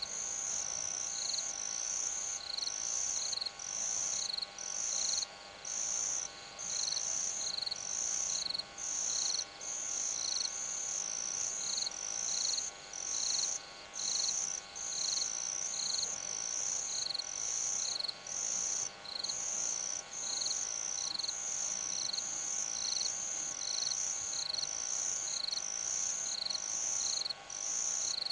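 Crickets chirping in a steady, even rhythm, about two high-pitched chirps a second, with two callers seeming to alternate, over a faint steady hum.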